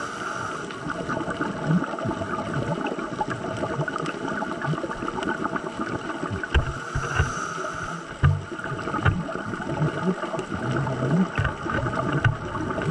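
Underwater reef sound picked up by a dive camera: a steady hum with scattered crackling clicks and irregular low rumbling bursts, the strongest about six and eight seconds in.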